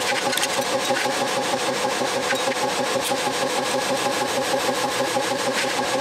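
TIG welding arc on steel tubing, a steady raspy buzz with a fast, even pulsing.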